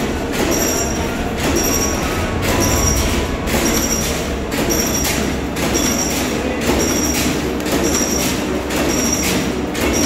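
Cable tray punching machine running, its punch tool striking a galvanized steel sheet in a steady repeating rhythm of metallic strokes, each with a short high ring, over a continuous machine rumble.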